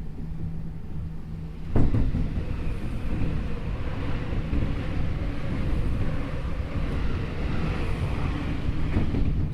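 Interior running noise of a Tokyu 5050 series electric train with Hitachi IGBT inverter drive, heard at the end of the car: a steady rumble of wheels on rail, with a sharp knock a little under two seconds in. Faint, steady motor and inverter tones sit above the rumble.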